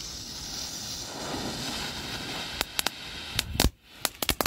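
Lesli Viking Cracker firecrackers going off: after a steady hiss, a rapid, irregular run of sharp cracks starts a bit over halfway in, one near the middle of the run louder than the rest.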